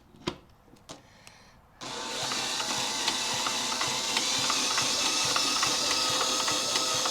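A few light clicks, then a machine starts about two seconds in and runs steadily with a fast ticking rattle.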